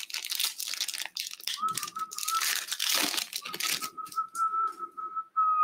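Foil trading-card pack wrapper crinkling and cards being handled, an irregular crackle. About one and a half seconds in, a steady high tone starts and holds with a short break through the rest.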